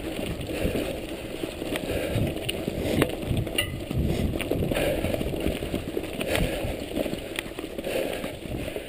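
Mountain bike riding over a rough dirt forest trail: tyres rolling over dirt and roots with a low rumble, and frequent sharp knocks and rattles from the bike over bumps.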